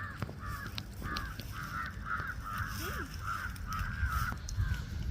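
Crows cawing in a steady run of short calls, about two or three a second, over a low rumble.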